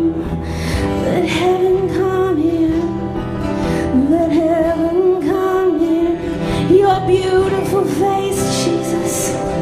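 Live church worship band playing a gentle worship song, with a wavering sung melody line over the band.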